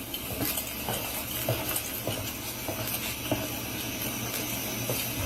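Steady hiss from a police body camera's microphone, with faint scattered clicks and knocks and a low hum underneath as the officer moves.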